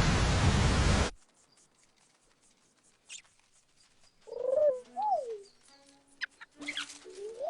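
A loud, noisy sound cuts off suddenly about a second in; after a pause comes a short high chirp, then a few bird calls that glide up and down in pitch, coo-like, in the last three seconds.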